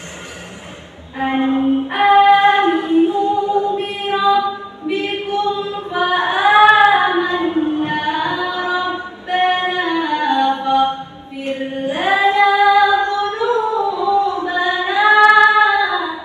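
A solo female voice chanting Quran recitation (tilawah) unaccompanied, in several melodic phrases with long held notes and ornamented pitch turns, starting about a second in.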